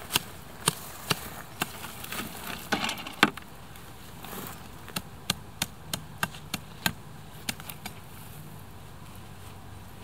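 Machete chopping weeds at the base of a young tree: a run of sharp strikes roughly two a second, a short pause about four seconds in, then a quicker run of about three strikes a second that stops about three-quarters of the way through.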